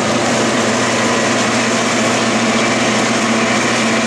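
Variable-speed metal lathe running under power, its spindle being brought up to about 1,000 RPM, with a steady machine noise.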